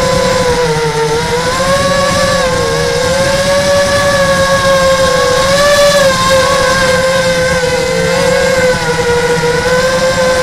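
Radio-controlled model aircraft's motor and propeller whining, heard from the onboard camera over a rush of wind; the pitch dips and rises every second or two as the throttle changes.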